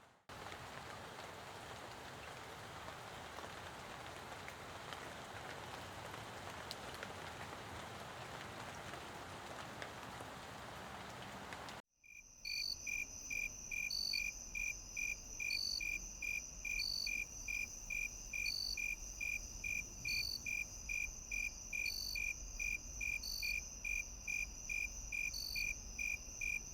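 Steady rain falling, which cuts off abruptly about twelve seconds in and gives way to an insect chorus: a continuous high-pitched trill under crickets chirping about twice a second, with a higher chirp every second or so.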